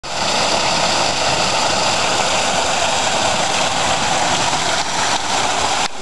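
Small garden waterfall cascading over rocks: a steady rush of falling, splashing water.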